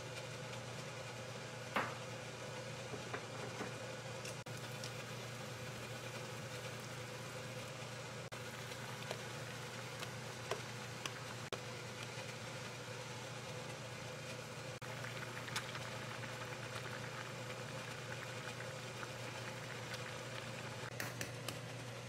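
A pot of stew simmering on an induction cooktop: a steady bubbling hiss over a low hum, with a few light clicks and knocks.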